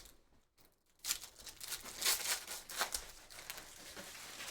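Trading card pack wrappers crinkling and tearing as packs are opened and cards handled, in a run of irregular bursts starting about a second in.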